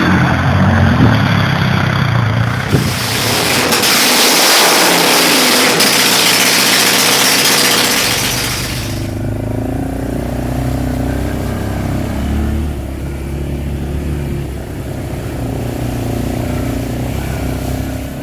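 Vehicle engine running, with a loud rushing noise from about three seconds in that stops abruptly around nine seconds in.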